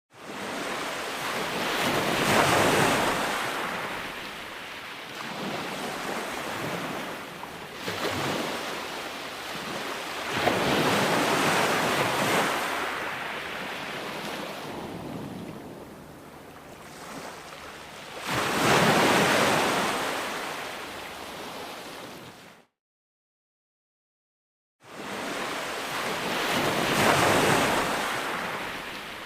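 Ocean surf: waves break and wash in as a loud rushing noise that swells and fades about every eight seconds. About three-quarters of the way through, the sound cuts out completely for about two seconds, then comes back.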